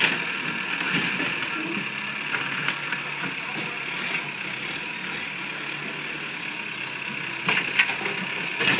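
Street traffic noise with vehicle engines running, a steady hum and hiss, with a few short knocks near the end.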